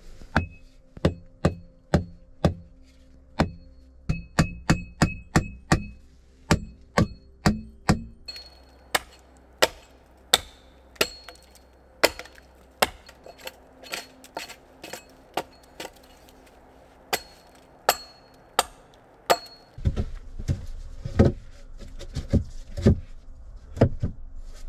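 Hammer blows on nails and log timber: a run of sharp strikes, at first two or three a second with a short metallic ring, then slowing to about one a second. In the last few seconds the knocks turn deeper and duller.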